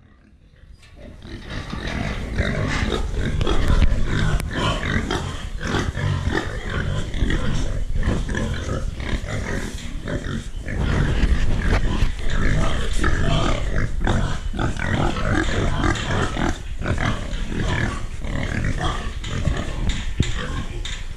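A group of pigs grunting continuously in dense, overlapping calls, fading in over the first two seconds.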